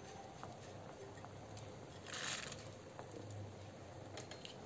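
Steel pot of sprouted moth beans boiling in water on a gas stove: faint steady bubbling, with a brief louder hiss about two seconds in.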